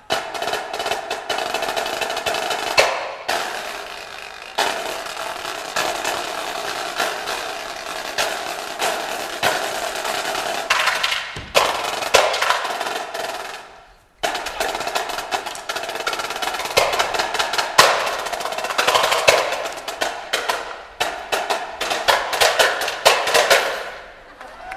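Marching snare drums playing fast rolls and rapid stick patterns. The playing stops suddenly about fourteen seconds in and starts again a moment later.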